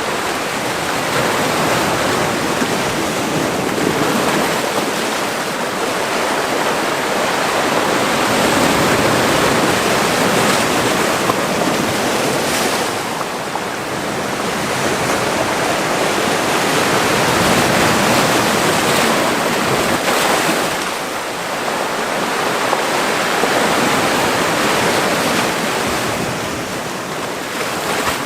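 Mediterranean Sea waves washing ashore in a cove: a continuous rushing wash that swells louder and eases off again several times.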